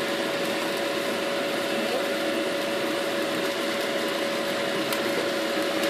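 Steady hiss with a constant hum from a pan of tomato masala cooking on a gas hob, as cauliflower florets are dropped into it by hand.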